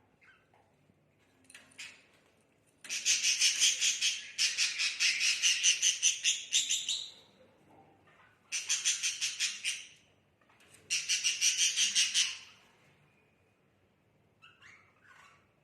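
Pet budgies making three bursts of fast, rhythmic rasping pulses, several a second, each lasting one to four seconds, with a few faint chirps near the end.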